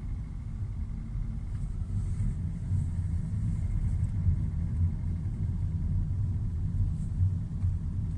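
Hyundai i40's 2.0 G4NA four-cylinder petrol engine running warm under load, heard from inside the cabin as a steady low rumble. The owner records it for an engine knock.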